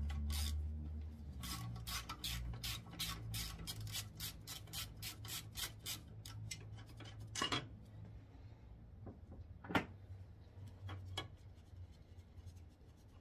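Quarter-inch ratchet with a 14 mm socket clicking quickly and evenly, about five clicks a second, as a bracket bolt is backed out. This is followed by two sharper metal clinks and a few faint ticks.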